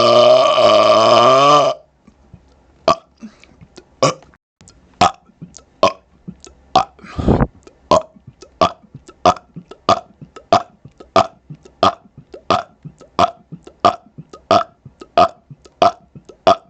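A man's long, drawn-out burp with wavering pitch, ending about two seconds in. Then a steady string of short, quick burps follows, about one and a half a second, with one longer, deeper burp near the middle.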